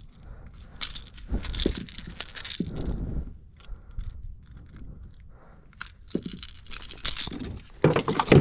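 Irregular clinking, rattling and rustling handling noises, with a few sharper knocks, as gear and a freshly landed fish are handled in a kayak.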